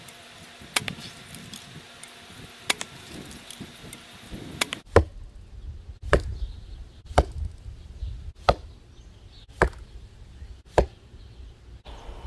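Arrows striking a foam block archery target: six sharp thwacks about a second apart. Before them come a few sharper, fainter snaps of a recurve bow being shot.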